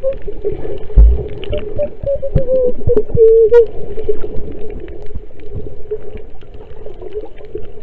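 A woman humming or singing a wavering, muffled tune into her snorkel underwater, holding a note about three seconds in. Around it are crackling clicks of water and bubbles, and a low thump about a second in.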